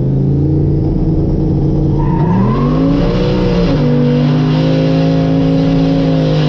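Drag pickup truck's engine held at steady revs on a 2-step launch limiter, then launched: about two seconds in the revs climb, drop sharply as it shifts, and settle into a steady pull with the rear tires spinning.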